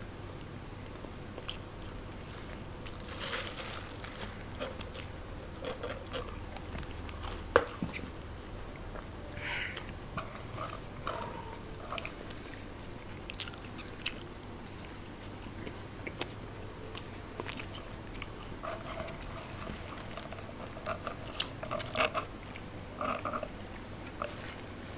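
Close-miked chewing and crunching of crisp snack food, with irregular sharp bites and mouth sounds; the pastries are described as very crunchy.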